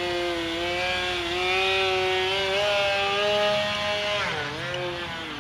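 An E-flite QQ Edge RC aerobatic plane's motor and propeller buzzing in flight. The pitch climbs slowly for about three seconds, then dips sharply and comes back up about four seconds in.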